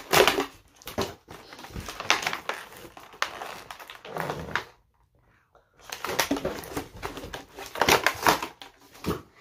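Cardboard box and plastic packaging being handled and pulled open, crinkling and rustling in irregular bursts, with a short pause about halfway through.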